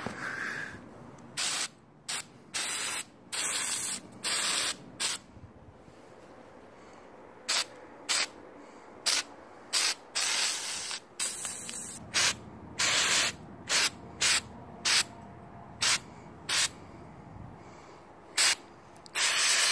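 Aerosol can of texture spray paint sprayed in about twenty short bursts, each a quarter second to a second long, with a pause of a couple of seconds midway.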